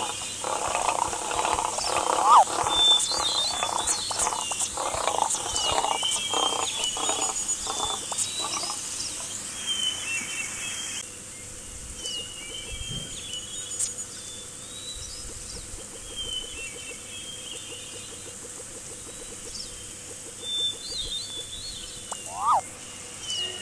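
Cartoon animal sound effects. The first half is busy with short animal noises and a few rising cries. After about eleven seconds it drops to a quieter background of short high chirps that recur all through.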